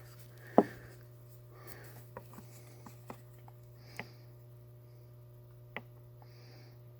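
Faint clicks and taps of a Zippo lighter and its box being handled, with one sharper click about half a second in and a few lighter ones after. A steady low hum runs underneath.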